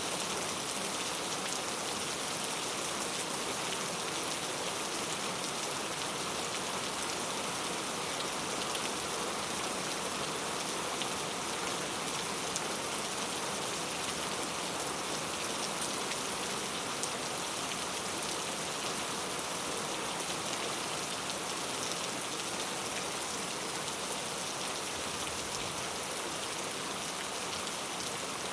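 Steady rain falling on a surface, with small drop ticks scattered through it.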